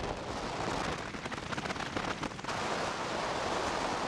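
Wind rushing over and buffeting a microphone held out the window of a moving car, with road and tyre noise beneath; the blasts crackle most in the first couple of seconds.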